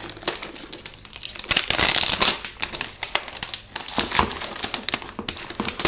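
Thin plastic protective wrap being peeled off a small computer and crumpled in the hands: a dense run of crinkling and crackling, loudest about two seconds in.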